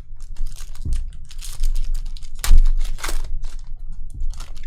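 Hands working through packs of chrome trading cards: quick clicks and crinkling of the foil wrappers and stiff cards, with a single thump about halfway through.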